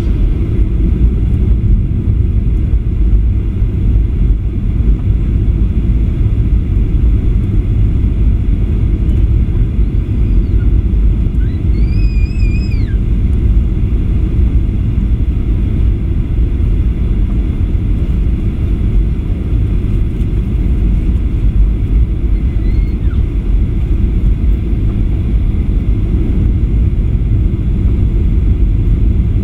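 Steady low rumble inside the cabin of a Boeing 737-800 on final approach: its CFM56 engines and the airflow over the fuselage and wing. A faint, brief high-pitched sound rises and falls about halfway through.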